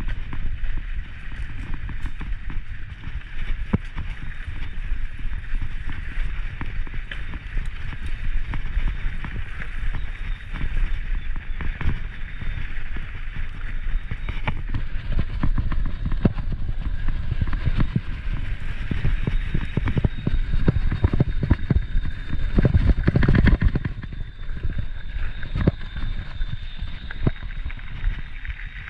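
Mountain bike rolling down a dirt singletrack: wind rumbling on the microphone, tyres running over the dirt, and the bike rattling and knocking over bumps and roots. It is roughest and loudest about three-quarters of the way through.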